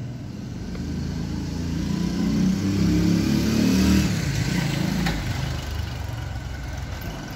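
Motorbike engine running as the bike rides along the street, growing louder to a peak about four seconds in and then easing off.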